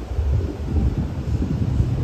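Wind buffeting the microphone in irregular gusts, over the low rumble of a Boeing 747-8 freighter's four GEnx jet engines passing overhead on approach.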